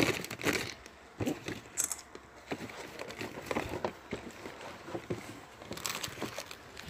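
Scattered light taps, clicks and rustles of small items being handled and set down, without any steady sound.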